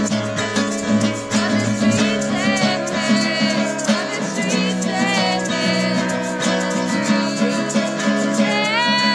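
Acoustic guitar strummed in a steady rhythm, with a voice singing over it from about two and a half seconds in.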